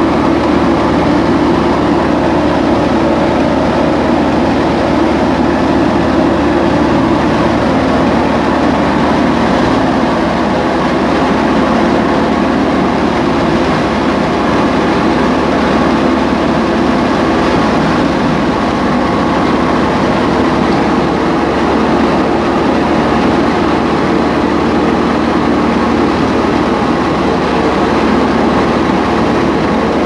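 Tractor-driven wheat thresher running steadily and loudly, with threshed grain pouring out of its outlet chute.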